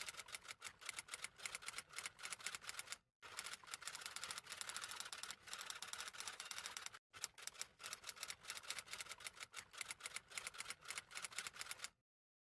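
Typewriter-style typing sound effect: rapid, quiet key clicks with two short breaks, about three and seven seconds in, stopping abruptly near the end.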